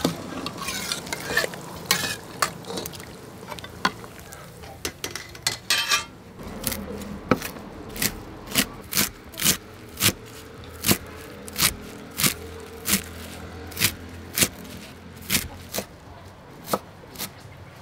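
A metal ladle clinking and scraping against a steel colander and pot as fish pieces are slid in; then, from about six seconds in, a kitchen knife chopping leafy herbs on a thick wooden chopping block in sharp, even strokes, about one and a half a second.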